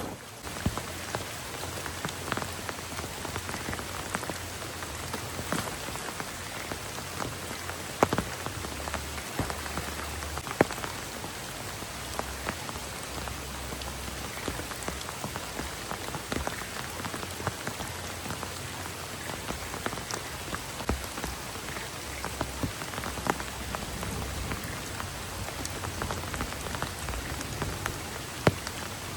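Heavy rain falling steadily, with individual drops ticking sharply against near surfaces and a few louder single drops.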